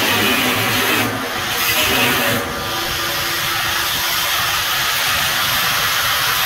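Angle grinder grinding the steel body of a smoker, a steady harsh hiss that briefly eases about a second in and again about two and a half seconds in.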